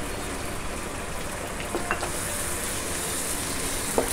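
Onion, tomato and spice tempering sizzling in hot oil in a pan, with a couple of light knocks about two seconds in and near the end.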